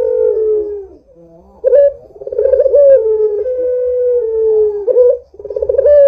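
Barbary dove (puter) cooing: long, wavering coos that slide gently down in pitch. One phrase ends about a second in, a longer one runs from about a second and a half to five seconds, and another starts just after.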